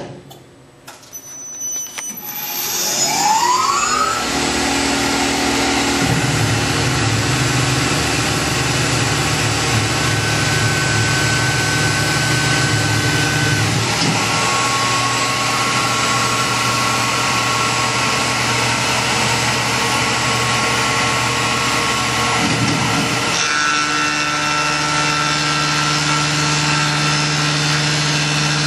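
Tormach PCNC 1100 CNC mill's spindle spinning up with a rising whine after a sharp click at the start, then running steadily while the end mill cuts the aluminium camber spacer. The pitch of the whine and its low hum change twice as the cut goes on.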